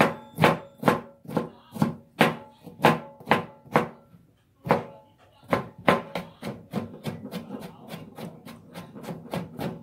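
Kitchen knife mincing pickles on a cutting board: steady chopping strikes about two to three a second, a brief pause about four seconds in, then quicker, lighter chopping.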